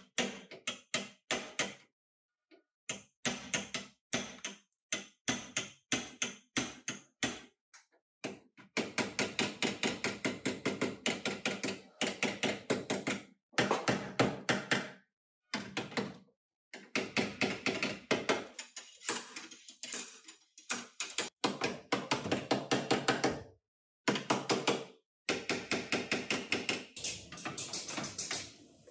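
Rapid, evenly spaced knocks or taps in runs of a few seconds, each run ending in an abrupt cut to silence.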